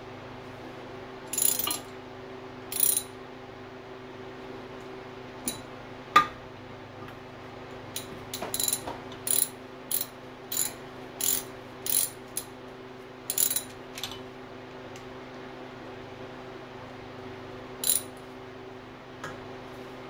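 Hand ratchet clicking in short bursts as the camshaft timing sprocket bolts on a Chevy small-block 350 V8 are run down snug before torquing. There are a couple of bursts early, a single sharp click about six seconds in, then a quick run of about ten bursts, and one last burst near the end.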